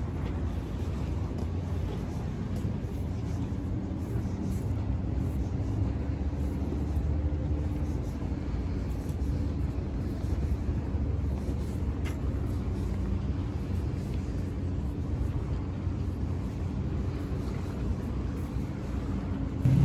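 Boat engine running on the water with a steady low rumble and a faint hum.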